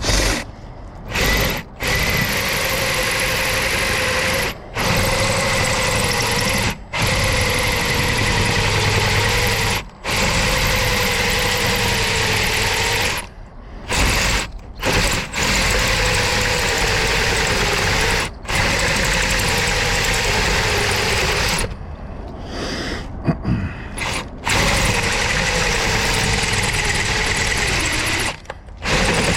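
Power drill boring into a steel door, running in long steady stretches and stopping briefly many times as the trigger is let off and squeezed again.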